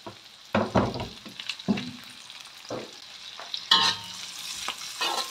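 Chillies, shallots, garlic, galangal and kaffir lime leaves sizzling in hot oil in a wok, with a spatula scraping and knocking against the wok several times as the aromatics are stir-fried.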